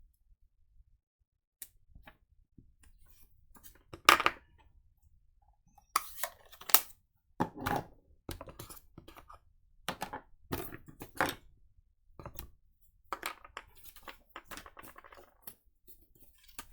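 Rubber stamping on card: scattered light knocks as a stamp is tapped on an ink pad and pressed onto the card and envelope, with short paper scrapes and handling in between. The sharpest knock comes about four seconds in.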